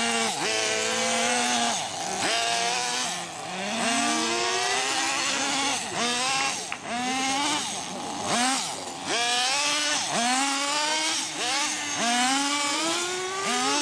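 Small nitro glow engines of radio-controlled touring cars running on asphalt, a high buzzing whine that revs up in pitch and drops off again over and over as the cars accelerate down the straight and slow for the turns.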